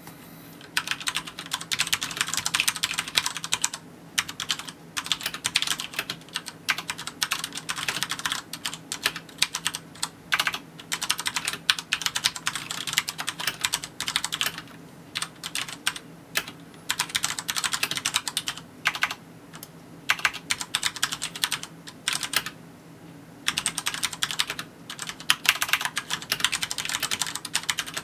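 Fast typing on a Xenics Tesoro M7 LED SE mechanical keyboard with brown switches: dense runs of key clacks broken by short pauses every few seconds.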